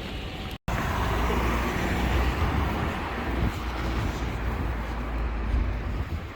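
Street traffic noise: a steady rumble and hiss of passing road vehicles. It breaks off for a split second less than a second in.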